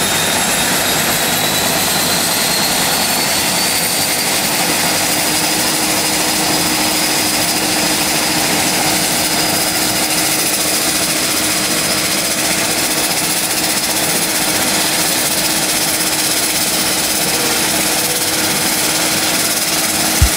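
Aircraft engines in flight: a steady, loud engine and airflow noise with a high whine that rises slightly in pitch over the first few seconds.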